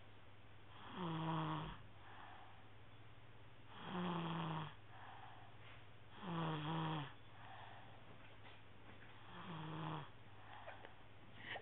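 Snoring in a slow, even rhythm: four pitched snores about three seconds apart, each followed by a softer breath out, over a faint steady hum.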